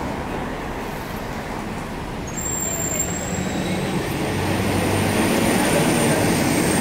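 Road traffic noise with a heavy vehicle's engine growing louder about two and a half seconds in, joined by a thin high whine.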